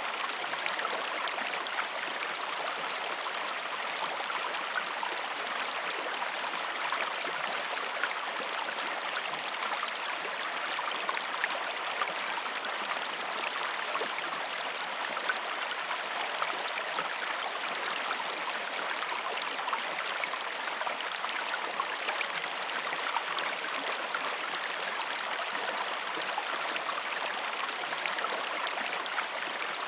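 River water flowing over stones: a steady, even rush with small splashes and gurgles.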